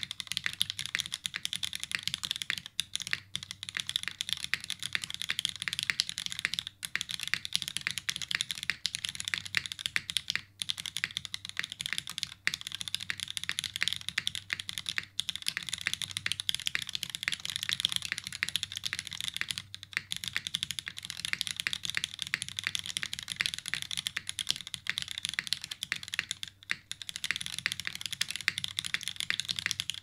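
Continuous fast typing on a top-mounted mechanical keyboard with linear Cherry MX Black switches, diamond-polished and lubed, in an aluminium plate with no dampening, under GMK keycaps. Keystrokes run densely, with a few short pauses every few seconds.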